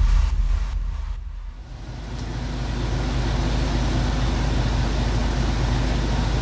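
Electronic intro music fading out over the first second or two. After that a motor vehicle's engine runs steadily with a low hum, under road noise.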